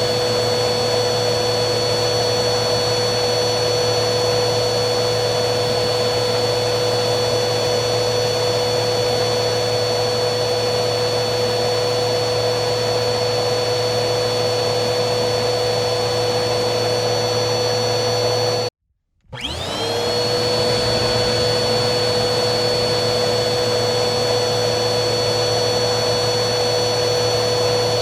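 Vacuum cleaner motor running steadily, a loud rush of air with a high whine over it. About two-thirds of the way through it cuts out abruptly for half a second, then spins back up to speed with a rising whine and runs steadily again.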